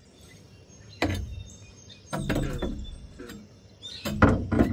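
Scattered metal knocks and clanks from hand work on a pickup's exhaust pipe, with a cluster of louder sharp knocks just after four seconds.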